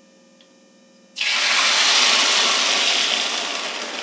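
Hot oil with roasted cumin and fenugreek seeds sizzling loudly as a curd and moong dal batter is poured into the pan. The sizzle starts suddenly about a second in and slowly dies down.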